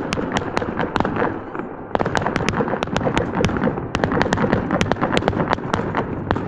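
Aerial fireworks bursting overhead: a fast, unbroken run of sharp bangs and cracks, several a second, over a low rumble, with a short lull about two seconds in.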